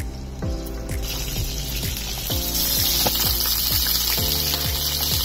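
Frozen beef gola kababs sizzling in hot oil in a grill pan, the sizzle setting in strongly about a second in, under background music with a steady beat.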